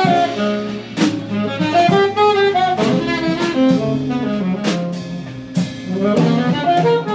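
Small jazz group playing live: a saxophone carries a moving melodic line over double bass and drum kit, with cymbal strikes about once a second.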